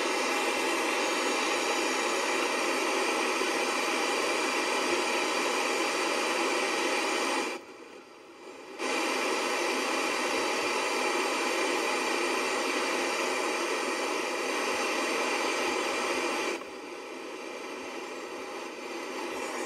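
White-noise static hiss from the speaker of a 1984 Panasonic black-and-white CRT TV/clock/radio with no station tuned in. The hiss drops out for about a second near the middle and is quieter for the last few seconds.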